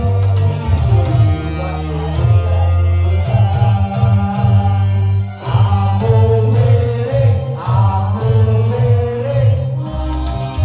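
Live music with a singer over a loud amplified band: strong rhythmic bass and plucked guitar-like accompaniment.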